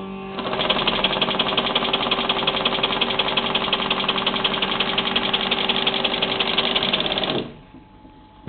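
Vacuumatic Vicount paper counting machine running a count, its rotating vacuum counting head working through a stack of paper sheets with a loud, fast, even mechanical rattle over a steady hum. It starts just after the beginning and cuts off about seven and a half seconds in.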